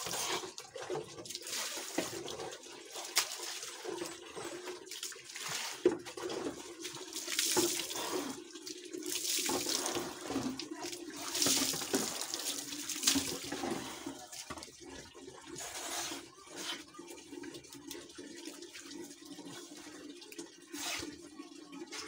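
Water poured from a plastic dipper splashing over a bather and onto a wet concrete floor, in repeated pours through the first fourteen seconds or so, then softer, sparser splashing.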